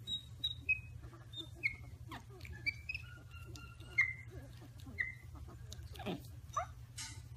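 Baby monkeys peeping: a string of short, high chirps, about two a second, a few held briefly and two sliding down in pitch near the end.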